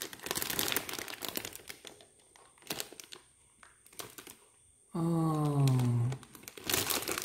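Clear plastic bags around model-kit runners crinkling as they are handled, in patches with a quieter gap in the middle. About five seconds in, a man makes a drawn-out wordless sound that falls in pitch.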